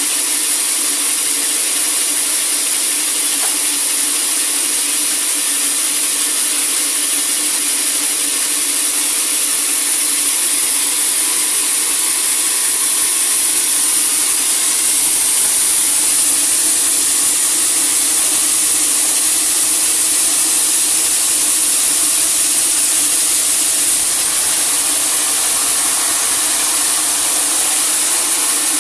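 Sawmill saw cutting through a large teak log: a steady, unbroken mechanical noise with a strong high hiss.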